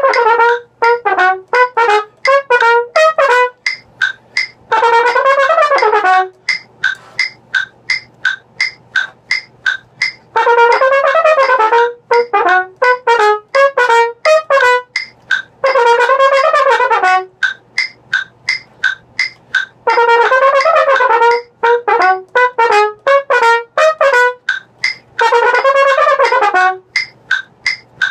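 Solo trumpet playing a fast passage of short, detached tongued notes, broken about every five seconds by a longer slurred phrase with wavering pitch.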